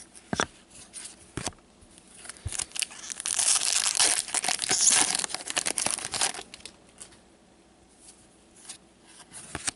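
A foil trading-card pack torn open and its wrapper crinkled: a dense crackle lasting about three seconds, near the middle. A few light clicks come first.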